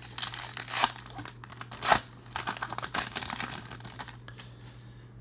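Baseball card pack wrapper being torn open by hand, with sharp rips about one and two seconds in, then crinkling as the wrapper is pulled apart from the cards.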